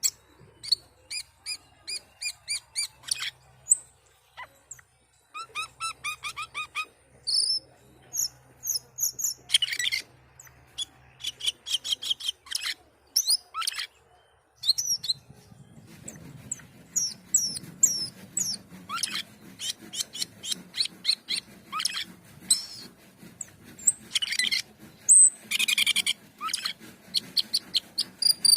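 Asian glossy starling (cucak keling) calling: quick runs of sharp, high chirps and short whistles, with brief pauses between runs. A faint low hum comes in about halfway through.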